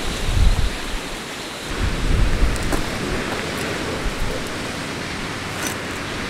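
Strong wind blowing across the microphone: a steady rushing hiss, with two heavy gusts buffeting the microphone in the first few seconds.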